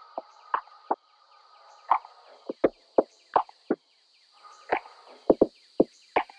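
About a dozen irregular light clinks and knocks of glassware, an amber bottle, a kitchen scale and a plastic mooncake press being handled and set down on a countertop, a few ringing briefly, over a faint steady hiss.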